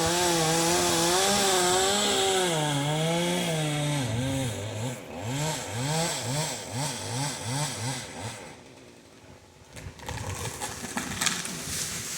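Two-stroke chainsaw running at high revs while cutting wood, then its pitch dipping and rising about twice a second as it bogs under load and recovers. The saw drops away about eight seconds in, and a few sharp cracks or knocks follow near the end.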